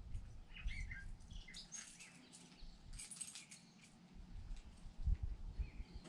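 Small birds chirping: a scatter of short, high calls in the first half, fading out, over a faint low rumble.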